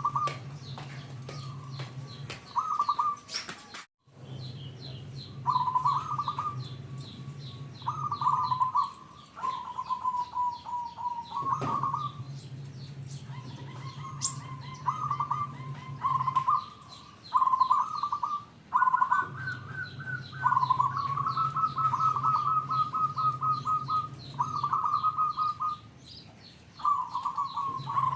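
Zebra dove (perkutut) singing: repeated cooing phrases, every second or two, some of them quick stuttering runs of notes, with a brief break about four seconds in. A low hum comes and goes behind it.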